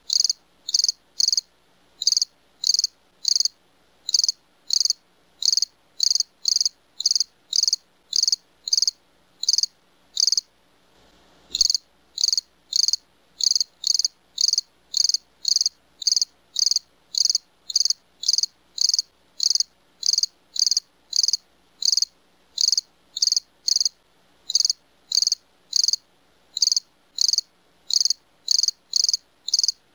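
Crickets chirping in a steady, even rhythm, about two to three high chirps a second, with a brief break about ten seconds in that ends in a faint low thud.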